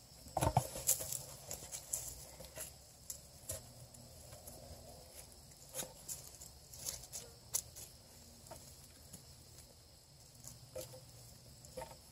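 Quiet, scattered crackles and rustles of dry leaves and twigs as a hound puppy mouths and tugs a plush chicken toy on the ground. The sharpest crackle comes about half a second in.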